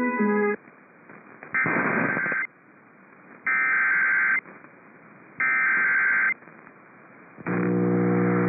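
Three bursts of Emergency Alert System SAME header data, the harsh digital tones that open a weather warning, each just under a second long and about two seconds apart. A steady, loud buzzing alert tone starts near the end.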